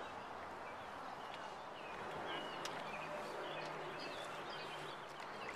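Open-air ambience on a calm river: a steady hiss of wind and water, with faint short high chirps and a few light clicks.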